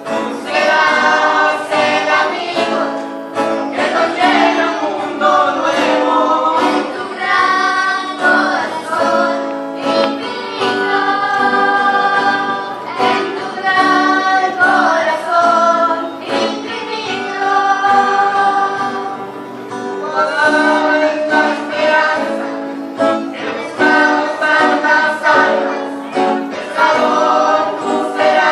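Church choir of mixed voices singing a hymn, with notes held and moving in pitch.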